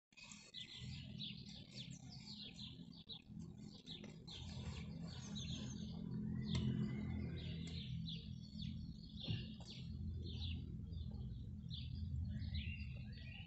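Several small birds chirping and twittering in quick short calls, over a steady low hum, with a single knock about nine seconds in.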